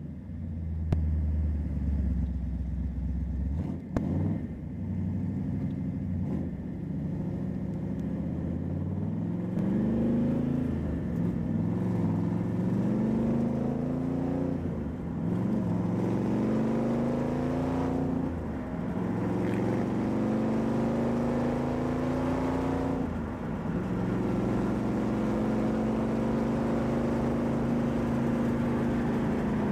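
A 331-cubic-inch Ford V8, heard from inside the Miata's cabin, idles and then pulls away under acceleration. It rises in pitch through several gears, with a drop at each upshift, and then settles to a steady cruise.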